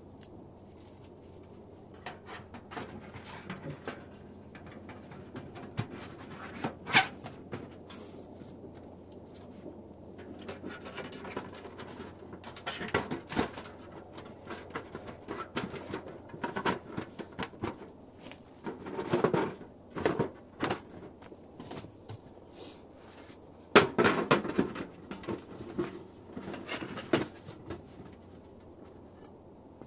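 Thin sheet-metal panels of a folding tent stove being handled and fitted together: scattered clinks, taps and scrapes of metal on metal, with a few louder knocks, the sharpest about seven seconds in and near the 24-second mark.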